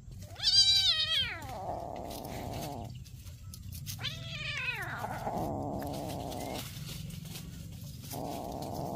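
A cat meowing twice. The first meow starts about a third of a second in and is long, rising and then falling in pitch. A shorter, falling meow follows about four seconds in.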